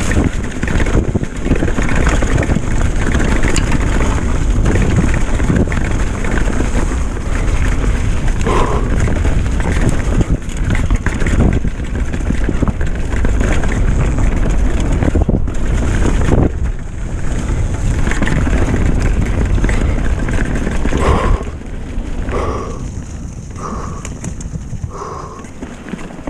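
Wind buffeting the microphone and the rattle and tyre noise of a retro downhill mountain bike riding fast over a leaf-covered dirt trail, with many small knocks from the bumps. The noise drops quieter about 21 seconds in, and a few short, brief tones come after it.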